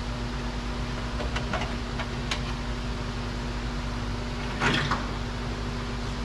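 A steady mechanical hum with a few light clicks about a second and a half and two seconds in, and a short scraping handling noise a little before the end.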